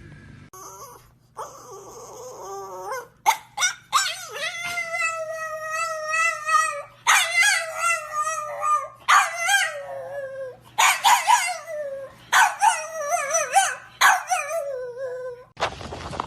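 A dog howling in a string of long, wavering calls with short yips between them; the longest is held for about three seconds and several drop in pitch as they end.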